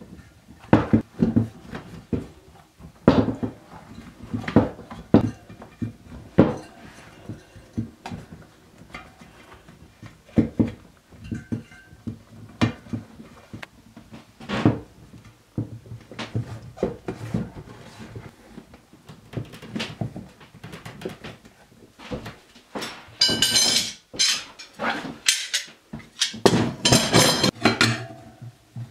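Hand work on a Piaggio Ciao moped's spoked wheel, fitting the inner tube and tyre: irregular knocks and rubber rubbing on the rim. Near the end, metal tyre levers clink and scrape against the rim as the bead is worked on.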